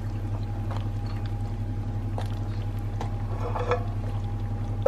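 A pot of green beans boiling in water, with faint bubbling and a few small clicks over a steady low hum.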